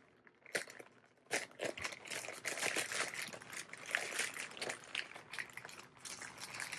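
Thin black plastic bag crinkling and rustling as it is slit open with a folding pocket knife and pulled back from a coiled rubber seal, starting about a second in.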